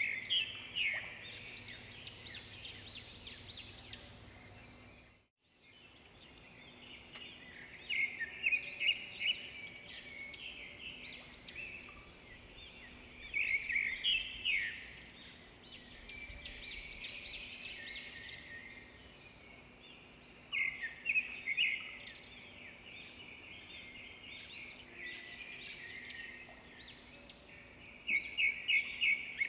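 Songbirds singing outdoors: a phrase of quick, high chirping notes comes every six or seven seconds, with softer chirps between, over faint background noise. The sound cuts out briefly about five seconds in.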